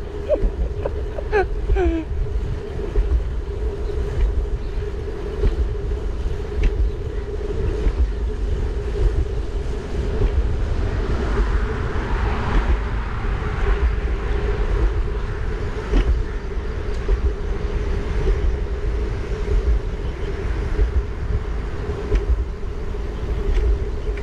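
Wind buffeting the microphone of a rider on a moving bicycle: a rough, fluctuating rumble with a steady hum running underneath.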